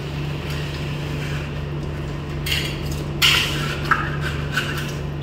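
A hand scraper blade and sandpaper scraping loose, damp-damaged paint and plaster off a wall beside a door frame, in a few short rasping strokes in the second half, over a steady low hum.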